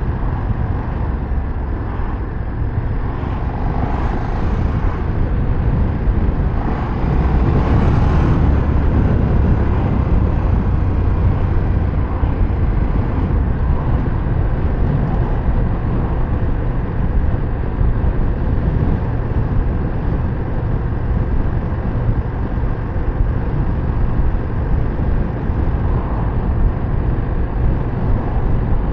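KTM 1390 Super Duke R's V-twin engine running under way, mixed with steady rumbling road and wind noise. It swells briefly about four and eight seconds in.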